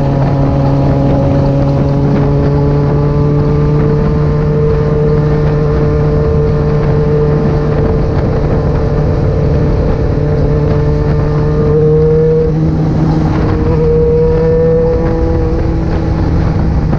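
Yamaha XJ6 600 cc inline-four motorcycle engine running steadily at highway cruising speed, its note climbing slowly. The note breaks briefly about twelve seconds in, then carries on.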